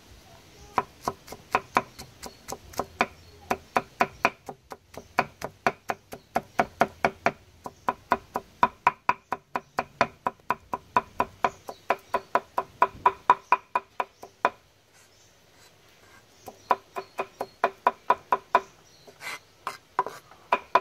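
Cleaver chopping garlic on a wooden chopping block: a quick, steady run of knocks, about three to four a second. It stops for about two seconds near fourteen seconds in, then resumes.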